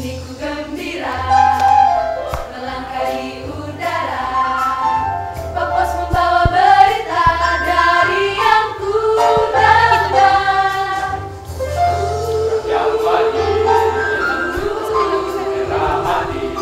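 Student choir singing an upbeat pop song, many voices together in harmony over a steady low bass part.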